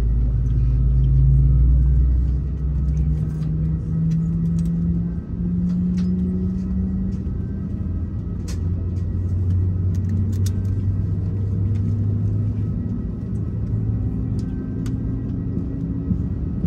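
Airbus A319-111's CFM56 engine spooling up during engine start, heard from inside the cabin: a low rumble with a hum that climbs in pitch over several seconds and then holds steady. Faint clicks sound over it.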